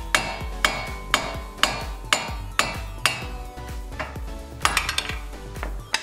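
Hammer blows on a 2013 Scion FR-S front wheel hub, driving the rust-stuck old hub out of the steering knuckle. Sharp ringing strikes come about twice a second for the first three seconds, then a few scattered ones near the end.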